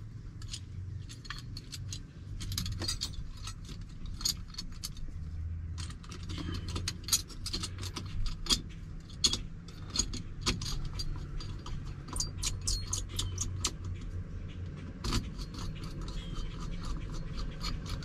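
Light metallic clicks and rattles of small steering-wheel hub parts being fitted by hand. The clicks are irregular and come thicker from about six seconds in.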